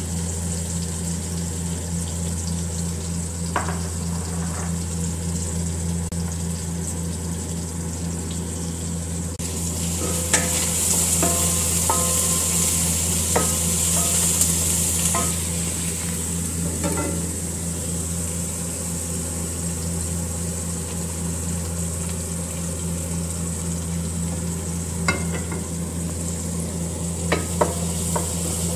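Tomato, herbs and spices frying in hot oil in a pot, sizzling while a wooden spoon stirs them, the spoon clicking against the pot now and then. The sizzle grows louder for a few seconds in the middle, over a steady low hum.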